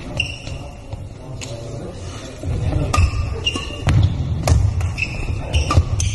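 Badminton doubles rally: sharp racket hits on the shuttlecock, coming quickly from about three seconds in, with shoes squeaking and footsteps thudding on the sports-hall floor.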